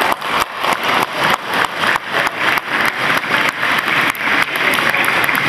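An audience of students applauding, their claps falling into a loose, fairly even beat of about four a second before blending into steady applause near the end.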